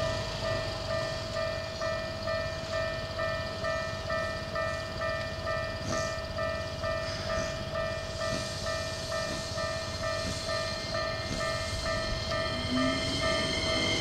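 Japanese electronic level-crossing alarm ringing in a steady rhythm of about one and a half strikes a second, warning of an approaching JR East E233-series train. The train's running noise grows near the end.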